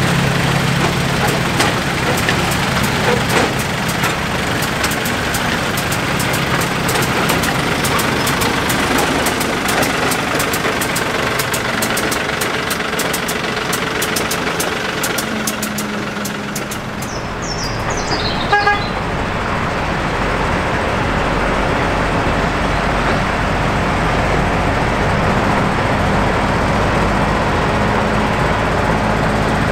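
Miniature-railway diesel locomotive engines running steadily, with a short horn toot a little past halfway.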